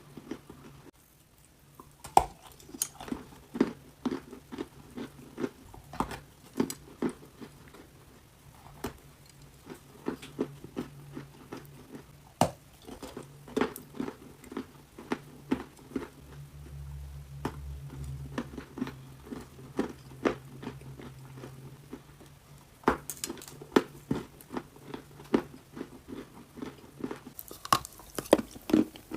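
A person biting and chewing crunchy clay close to the microphone: a run of sharp, crisp crunches that come thicker towards the end, over a faint steady low hum.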